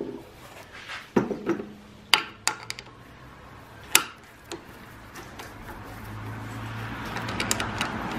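Metal clicks and knocks as a wooden blank is fitted into the jaws of a four-jaw lathe chuck, then a gritty rasp, growing louder, with a few quick ticks near the end, as the chuck key is turned to close the jaws on the tenon.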